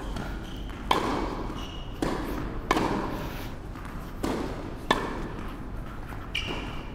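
Tennis rally: a ball hit back and forth with rackets, about six sharp pops roughly a second apart, echoing in a large indoor court.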